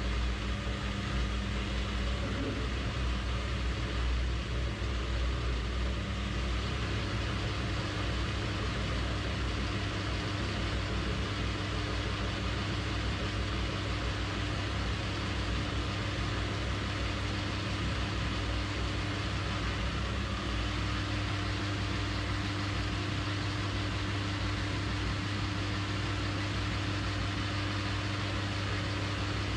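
AL960B metal lathe running at a steady speed with an even hum while its tool takes a light skim cut along a spinning metal shaft.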